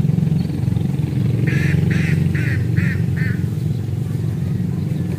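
A bird calls five times in quick succession, starting about a second and a half in, over a steady low drone.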